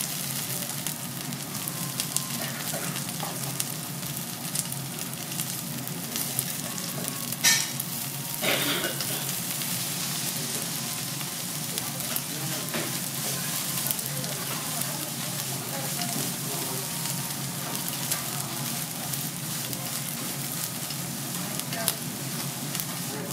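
Cubes of Kobe beef sirloin sizzling on a hot steel teppanyaki griddle, with a steady hiss and many small crackles, while a knife and fork tap and scrape on the steel. A sharp metal clank about seven seconds in and a short ringing scrape just after stand out.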